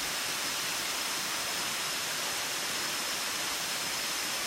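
Steady rush of a waterfall: an even hiss of water with no breaks or changes.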